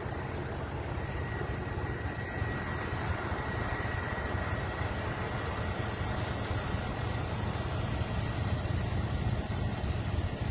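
Heavy truck engines idling: a steady low rumble, with a faint steady high tone over it.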